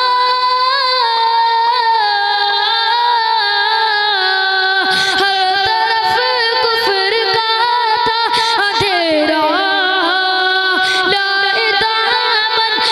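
A boy singing a naat solo into a microphone, holding long notes that bend and glide in pitch.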